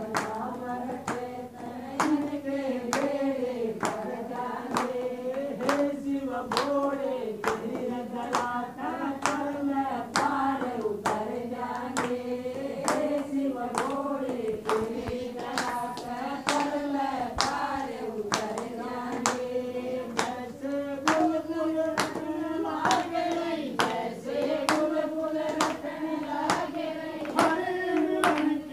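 A group of women singing a devotional Shiva bhajan together, with steady hand clapping on the beat all the way through.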